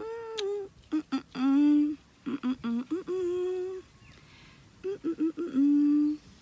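A voice humming in short held notes, broken up by quick little chirp-like sounds, with a sharp click early in the first second.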